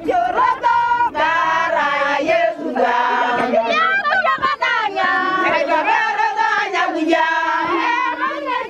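A group of Turkana women singing together in chorus, many voices overlapping.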